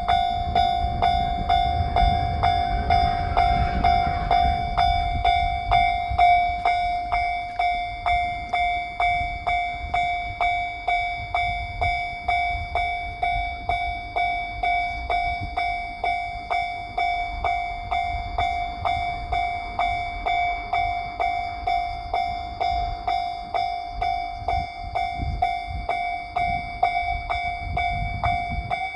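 Japanese level-crossing warning bell ringing steadily at about two strikes a second, with a low rumble that is loudest in the first few seconds.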